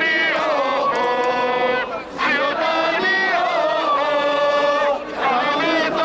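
Football supporters in the stands chanting a song in unison, many voices sustaining sung phrases with brief breaks about two and five seconds in.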